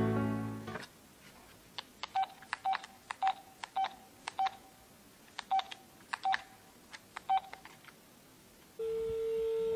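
Phone keypad dialing a number: about a dozen short touch-tone beeps at uneven spacing, then a steady tone near the end as the line answers. Soft piano music fades out at the start.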